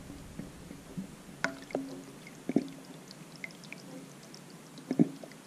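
Water poured from a glass jar into the electric canner's pot around the sealed jars, trickling and dripping, with a few light knocks.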